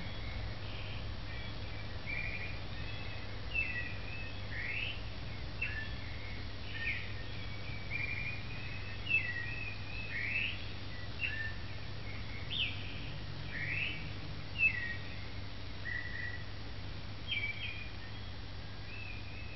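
A songbird singing a run of short, varied chirps and whistled notes, one or two a second, over a steady low hum.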